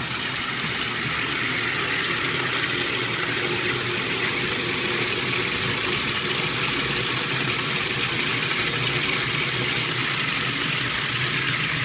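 Steady rush of running water in a custom-built toilet tank with traditional flush parts, holding even throughout.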